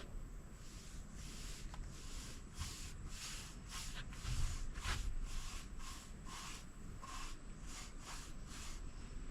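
Rhythmic swishing strokes of an applicator spreading oil-based stain along a wooden deck rail, about two to three strokes a second.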